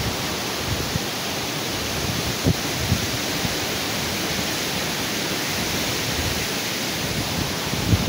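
Heavy wind blowing through palm trees and shrubs: a steady, loud rushing hiss, with gusts buffeting the microphone in a couple of low thumps about two and a half and three seconds in.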